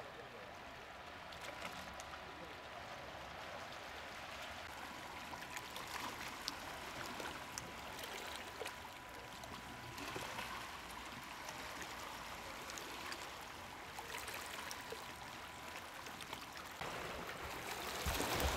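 Steady outdoor hiss like running or lapping water, with a faint steady high tone through the first half and a few light clicks. Wind starts buffeting the microphone right at the end.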